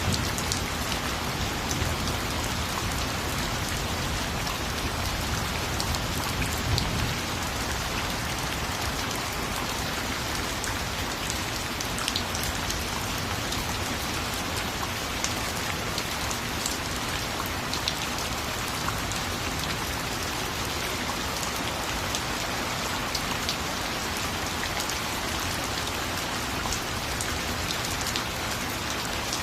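Steady rain falling, a constant hiss with the ticks of single drops striking a surface.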